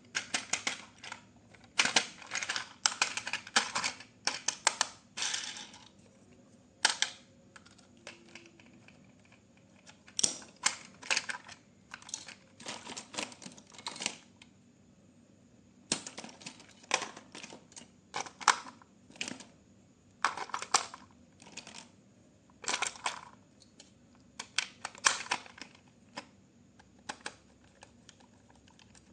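Hands handling objects: irregular clusters of sharp clicks and rustles with short pauses between them, the kind of handling noise that comes with opening packaging and plastic toy parts.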